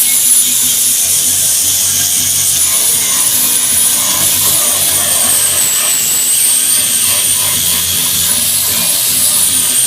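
A high-speed power tool running steadily: a loud hiss with a high whine that wavers slightly in pitch.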